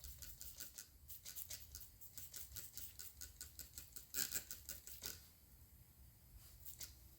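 Quick runs of short spritzing strokes, several a second, the loudest cluster a little after four seconds in. It is typical of a trigger spray bottle being pumped over a freshly plugged tire to check it for a leak.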